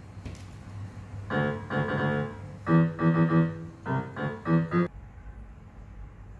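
Small electronic keyboard played by a cat: a quick, uneven run of about nine notes in a piano voice, cutting off abruptly about five seconds in.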